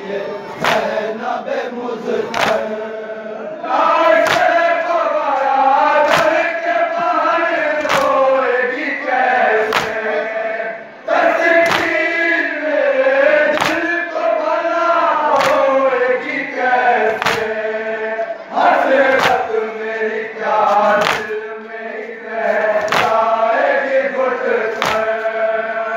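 A crowd of men chanting a noha together in a rising and falling melody, with matam (chest-beating by hand) striking in unison about once a second as a steady beat under the chant.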